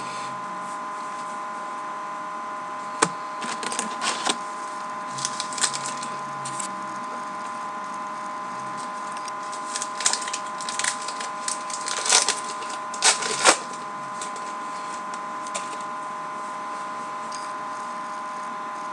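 Baseball trading cards being handled and flipped through: scattered snaps, clicks and rustles of card stock, with one sharp snap about three seconds in and busier clusters in the middle and after ten seconds. A steady electrical hum runs underneath.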